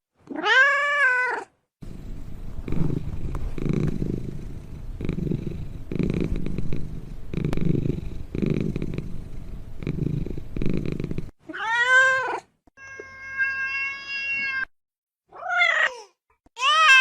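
Ocelot calls: a meow, then about nine seconds of low, rhythmic purring that pulses in pairs with each breath. Then come several more meows, one of them long and held at a flat pitch.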